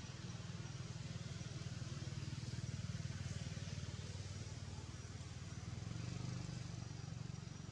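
Steady low hum of an engine running, with an even hiss above it.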